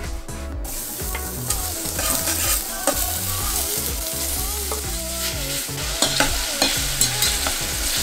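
Diced pork sizzling in a hot stainless steel pot as it is tipped in and stirred with metal tongs, browning in its own fat. The sizzle starts about half a second in, with a few sharp clicks of the tongs against the pot near the end.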